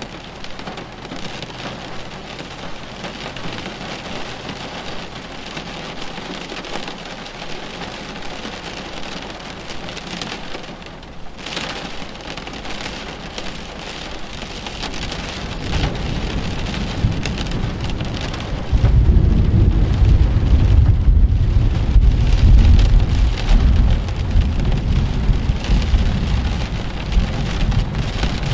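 Steady rain falling through a thunderstorm. A low rumble of thunder builds about halfway through, then rolls loudly for several seconds near the end.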